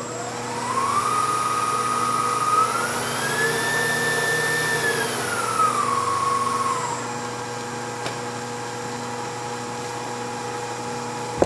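Victor 3 hp inverter-driven variable speed milling machine spindle running up to high speed. Its whine rises in two steps over the first few seconds, holds, then steps back down about halfway through and settles to a steady lower hum.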